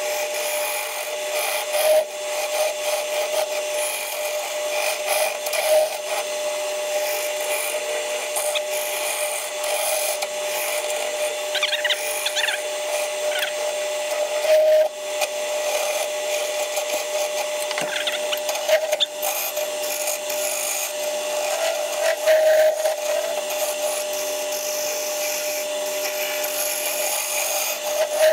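1970s Coronet woodworking lathe running with a steady whine while a turning tool cuts a spinning ash blank. The cutting scrapes and hisses continuously, swelling and easing with each pass of the tool.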